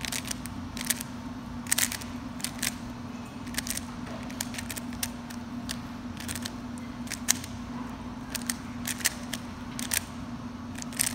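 A 3x3 Rubik's Cube being turned fast by hand in a speed-solve: rapid, irregular plastic clicking of the layers, often in quick clusters. A steady low hum sits underneath.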